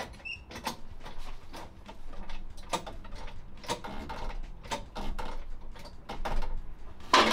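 Irregular mechanical clicks and light metallic knocks, about one to two a second, with a louder knock near the end.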